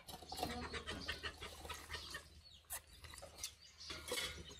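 Chickens clucking, mixed with the wet crunching and slurping of watermelon being bitten and chewed close to the microphone.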